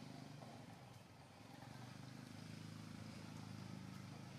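Faint, steady low hum of an engine running.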